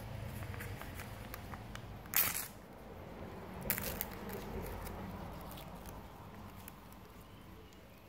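Hands handling and bending a thin black strip, with rustling and small ticks and two short scraping bursts, the louder about two seconds in and another nearly two seconds later.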